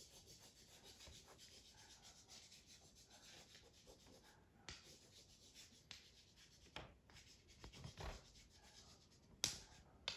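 Faint scratchy strokes of a drawing tool rubbing on paper as grass is scribbled in, with a few light taps, the sharpest near the end.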